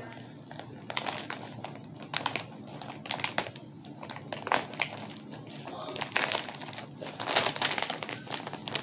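Plastic and cardboard packaging being cut open with a knife and handled, with irregular crinkling, scratching and crackling that grows busier in the last couple of seconds.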